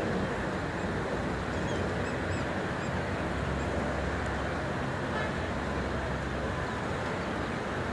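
Airbus A400M's four turboprop engines running at taxi power, heard from a distance as a steady low drone.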